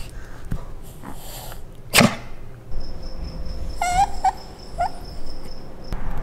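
Italian greyhound giving one sharp sneeze about two seconds in, then three short, high whines a couple of seconds later, the last rising in pitch.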